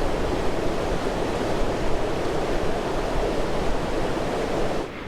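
River water rushing steadily past, an even, unbroken rushing noise.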